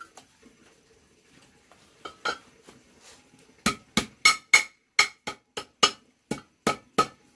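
A run of about a dozen sharp knocks, roughly three a second, each with a short ring, starting about halfway through; a faint knock or two before it.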